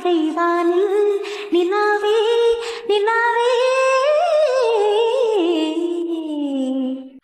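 Background song: a woman's voice singing a slow melodic line of long held notes that glide and waver in pitch.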